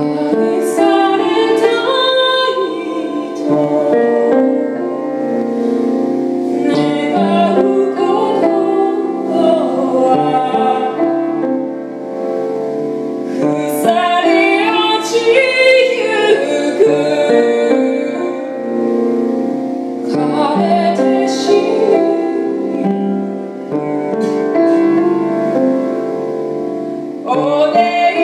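A woman singing a slow original song to her own piano accompaniment, in a style with a taste of Japanese traditional music. Voice and piano come in suddenly at the start, after a quieter passage.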